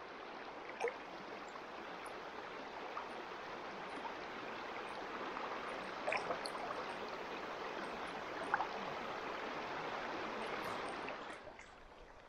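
River current rushing past rocks close by: a steady wash of water with a few brief small splashes, dropping away shortly before the end.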